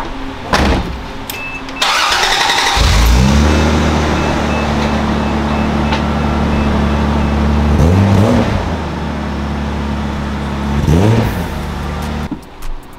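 A 1985 Mk2 Toyota Supra's engine is cranked and catches about three seconds in. It then idles steadily, with two short revs, one near the middle and one near the end.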